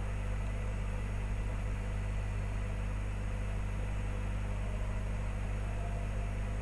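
Steady low electrical hum with an even hiss, unchanging throughout: mains hum and noise from the recording setup.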